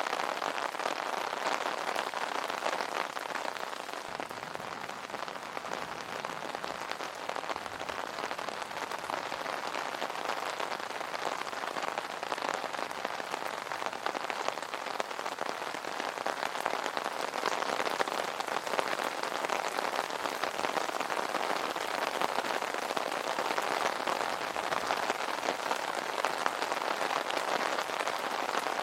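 Steady rain falling on an umbrella: a dense, even hiss of many small drop ticks.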